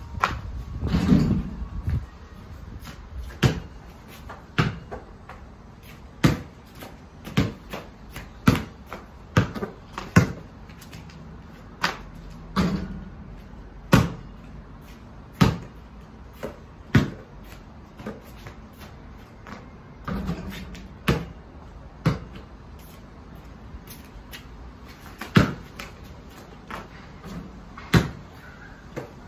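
A basketball bouncing on concrete paving slabs and hitting the rim and backboard of a portable hoop. The sharp thuds come at uneven intervals, a second or two apart. A longer, ringing hit comes about a second in and another about twenty seconds in.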